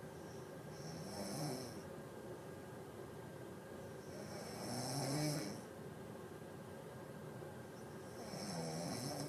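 A sleeping person snoring: three snores about three and a half seconds apart, each a low drone with a breathy hiss over it.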